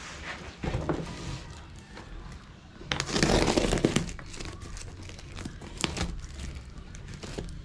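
Parcel packaging being opened by hand: crinkling and tearing, with small clicks, loudest in a burst about three seconds in.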